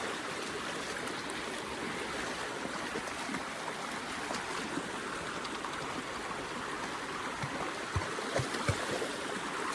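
Steady rush of flowing stream water, with a few short low thumps near the end.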